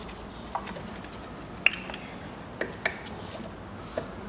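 About five sharp clicks and knocks of hoses, connectors and fittings being worked into place around a car engine's throttle body, the loudest about a second and a half in.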